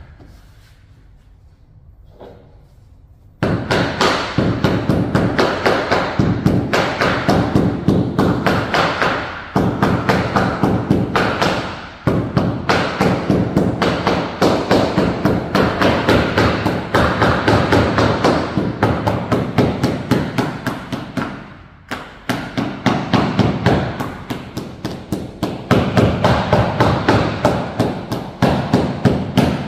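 Hammer striking a floor edge strip in rapid, steady blows, several a second. The hammering starts suddenly a few seconds in and pauses briefly a few times.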